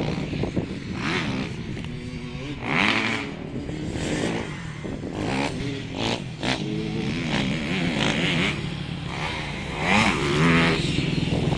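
Dirt bike engine revving up and down as it rides the track, its pitch climbing and dropping again and again.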